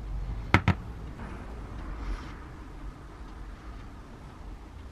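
Two sharp clicks close together about half a second in, from the metal gear-housing parts of a disassembled angle grinder being handled and set down, followed by faint handling rustle.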